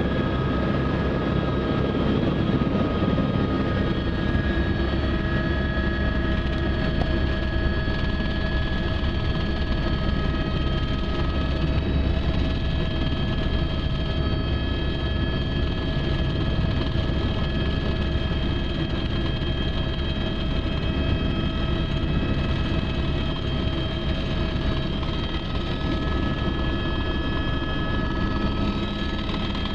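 Helicopter engine and rotor running steadily, heard from inside the cabin: a steady whine of several held tones over a low drone.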